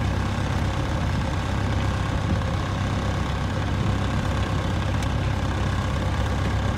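The ketch's inboard engine running steadily as the boat motors with its sails still furled, a constant low hum.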